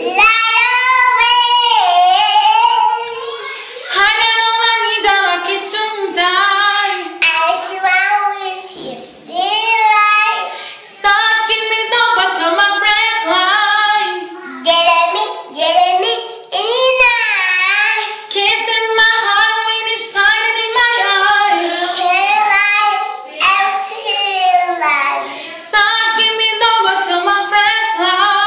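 A young girl singing without accompaniment, in a high voice, the words hard to make out.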